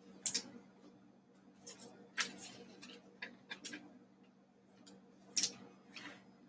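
2020 Panini Select football cards being handled and flipped through by hand: scattered sharp clicks and swishes of stiff card stock sliding and snapping against each other, the loudest about a quarter-second in, around two seconds in and at about five and a half seconds.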